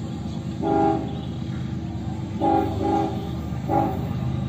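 Air horn of a GE ES44AC diesel locomotive sounding four short blasts: one under a second in, a close pair just past the middle, and one more near the end. A steady low rumble of the approaching train runs underneath.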